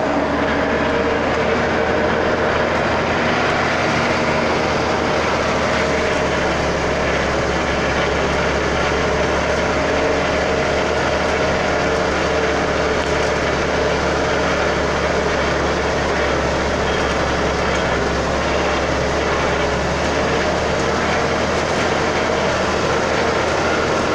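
Interior noise of a truck cab on the move along a dirt road: a steady, loud engine drone under rumbling road noise.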